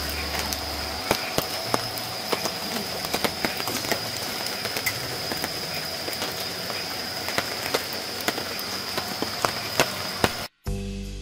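Evening insect chorus by a river: a steady high-pitched trilling with many scattered sharp clicks over a soft hiss. It cuts off shortly before the end, and acoustic guitar music comes in.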